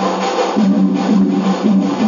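Background music led by guitar, with notes repeating in a steady rhythm.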